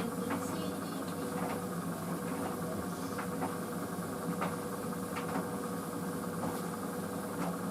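White Knight CL43 tumble dryer running steadily on a high-heat drying cycle: an even motor hum with a constant mid-pitched tone and a few faint scattered clicks.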